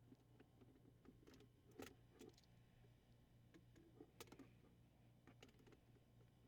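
Near silence with a few faint, scattered plastic clicks and taps as a glove box latch is handled and pushed into place in the dash.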